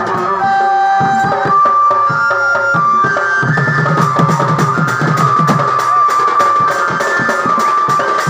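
Dance music with drums and percussion keeping a steady beat under a melody of held notes. The low drum part drops out about a second in and comes back about three and a half seconds in.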